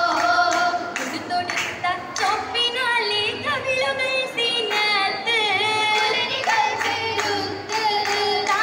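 Female voices singing a Mappila-style Oppana song together, with steady rhythmic hand claps keeping time.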